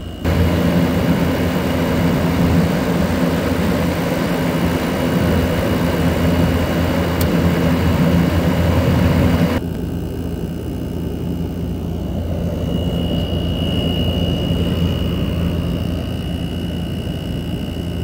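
Frigidaire window heat pump running: a steady electrical compressor hum under a loud rush of air that comes in abruptly at the start and drops away sharply about halfway through. After the drop, the hum carries on with a faint high steady whine.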